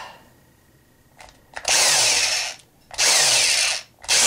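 Electric drill boring a hole through the thin wooden top of a guitar. It starts about a second and a half in and runs in three short bursts with brief pauses between them.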